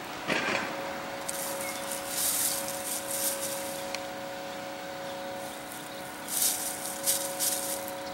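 Hens scratching and pecking through dry leaf litter: short bursts of rustling that come and go several times, over a steady mechanical hum.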